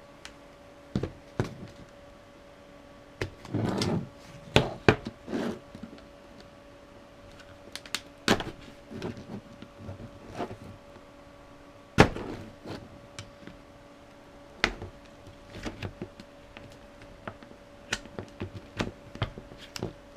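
Flat-blade screwdriver prying at a Dell laptop battery pack's plastic case: a long irregular run of sharp clicks, knocks and cracks, with a short scrape a few seconds in.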